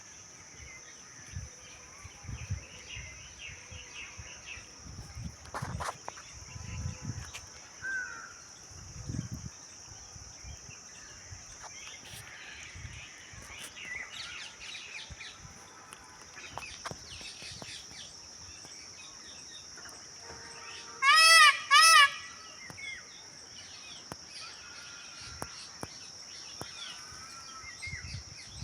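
Indian peafowl (peacock) giving two loud calls in quick succession about three-quarters of the way in, over a steady high insect drone and scattered small bird chirps.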